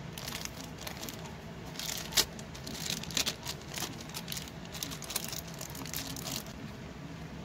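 Thin clear plastic wrapper crinkling and rustling in the hands as soft modelling clay is squeezed and scraped out of it, with scattered small clicks and one sharper tick about two seconds in.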